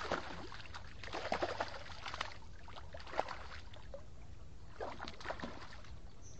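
Water splashing in several irregular bursts as a hooked fish thrashes at the surface close to the bank, over a steady low wind rumble.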